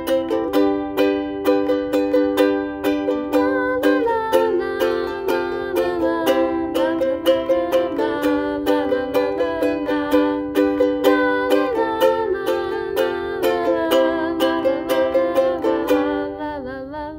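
Ukulele strummed in a steady rhythm of chords, with a woman singing along.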